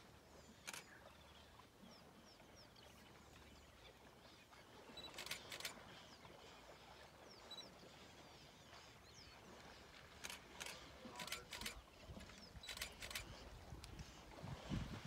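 Near silence: faint open-air ambience with scattered faint high chirps and a few soft clicks. A pair of clicks comes about five seconds in, and a cluster from about ten to thirteen seconds in.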